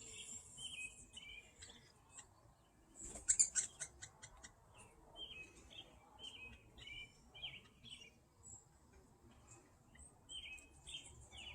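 Young hairy woodpecker chattering: short, repeated call notes in scattered runs, with a louder burst of rapid notes about three seconds in.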